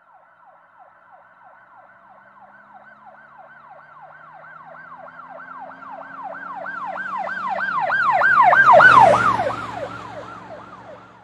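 Emergency-vehicle siren in a fast yelp, about three sweeps a second, growing louder to a peak near the end and then fading as it passes, with a vehicle rumble at the loudest point.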